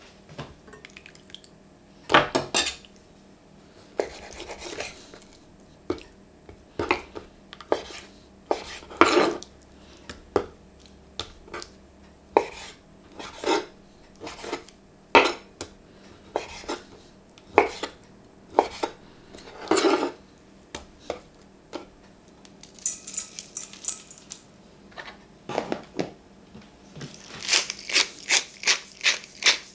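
Kitchen knife cutting raw chicken breast on a wooden chopping board: a separate knock of the blade on the board every second or so, with clinks against a stainless steel bowl. Near the end comes a fast run of crisp clicks as black pepper is ground over the chicken in the bowl.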